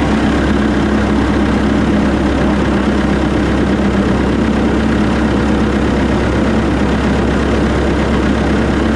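Large wood chipper running at steady revs with nothing being fed through it: an even, unchanging engine and drum hum.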